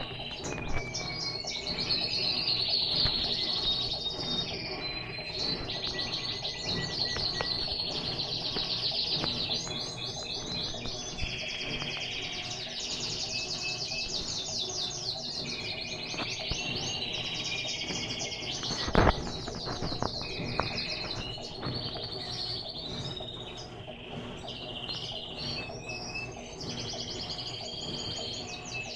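Small birds chirping and trilling over and over, with a single sharp knock about nineteen seconds in.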